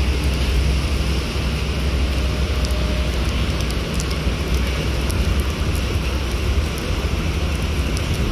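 A coach's diesel engine running with a steady low hum as the bus drives slowly off a ferry ramp, under the even hiss of heavy rain.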